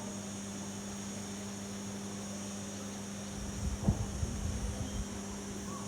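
A steady low hum over an even hiss, with a cluster of low knocks and bumps a little past halfway.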